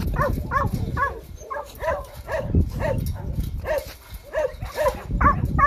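Dog barking over and over in an even series, about two short barks a second.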